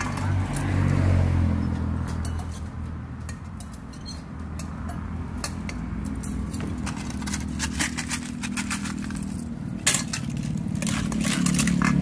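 A metal ladle clinking and scraping against a stainless steel bowl as a spicy cockle salad is tossed, with quick clinks coming thick in the second half. Under it runs a steady low hum.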